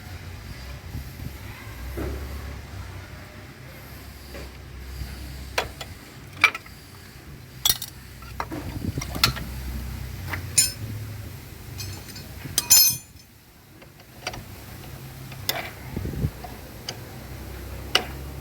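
Scattered metallic clinks and taps of hand tools and motorcycle clutch plates as the old clutch plates are removed, a few ringing briefly, over a low steady hum.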